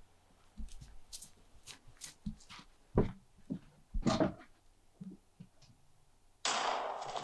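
Footsteps crunching irregularly through snow and brush for about five seconds. Then, near the end, a sudden loud rushing hiss cuts in and slowly fades.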